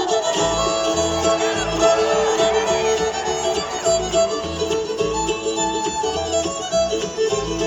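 Live bluegrass band playing an instrumental break with no singing: a sliding, gliding lead line over a steady bass beat and strummed rhythm.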